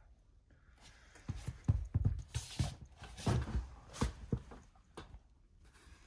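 Handling noise close to the microphone: a run of irregular knocks and rubbing that starts about a second in and dies away about a second before the end, as the phone is moved about and fingers press into the seat fabric.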